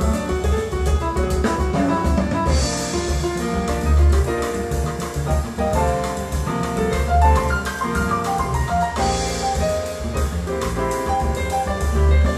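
Jazz piano trio music, with piano, double bass and drums, played through Triangle Borea BR03 BT powered speakers and recorded by room microphones. Deep bass notes recur throughout, and cymbals swell about two and a half seconds in and again about nine seconds in.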